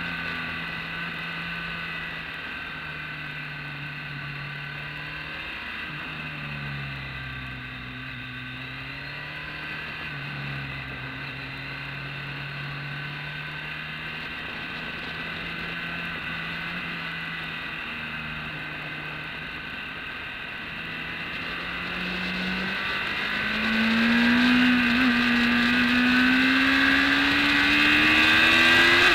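BMW K1200S inline-four engine at track pace, heard from the bike itself: the note holds fairly steady, dipping slightly through a long corner. About three-quarters in it climbs steadily in pitch and gets louder as the bike accelerates hard.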